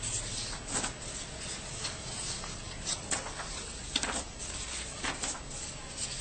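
Sheets of drawing paper rustling and sliding as they are handled and shuffled, heard as irregular soft ticks and rustles over a steady low hiss.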